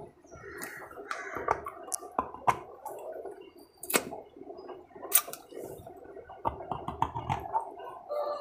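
Close-up eating sounds: wet chewing and lip smacking, broken by several sharp clicks and crunches.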